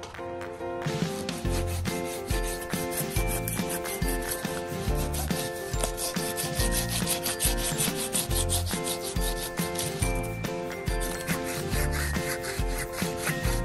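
Curved Stihl pruning saw cutting through a green tree limb in quick rasping back-and-forth strokes, with a brief pause about ten seconds in. Background music with a steady bass beat plays underneath.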